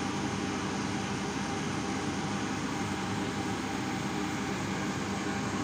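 A steady mechanical hum with a low droning tone that holds constant in pitch and level.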